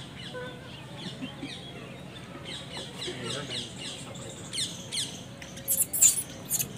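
Birds chirping, a quick run of repeated falling chirps. A few sharp clicks near the end are the loudest sounds.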